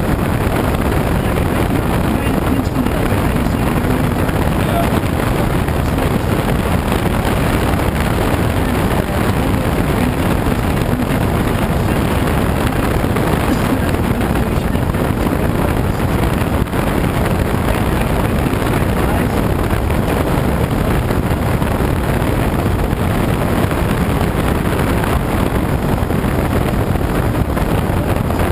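Steady rush of air streaming over a glider's closed canopy in flight, heard from inside the cockpit.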